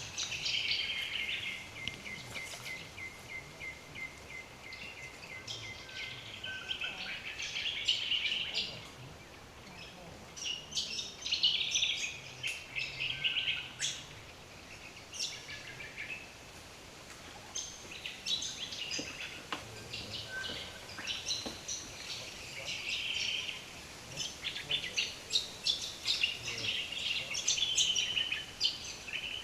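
Several wild birds calling at once: a chorus of sharp chirps, warbles and whistled notes, with a long run of rapid, even notes in the first few seconds.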